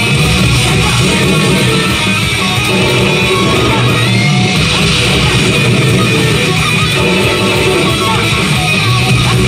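Loud hard-rock soundtrack with electric guitar playing from a Shura no Toki pachislot machine's speakers.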